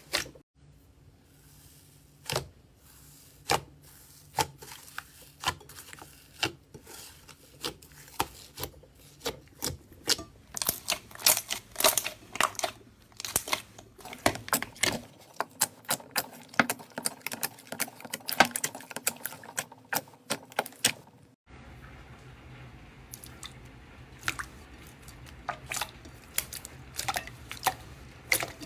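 Hand squeezing and poking slime, a run of sharp, uneven clicks and pops that grows busier midway.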